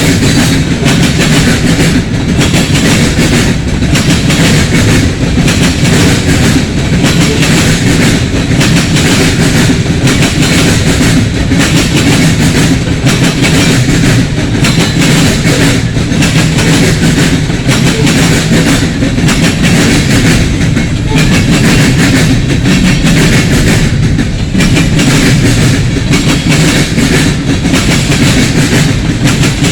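Freight train cars rolling past: steady wheel-on-rail noise with a regular clickety-clack as the wheels cross rail joints.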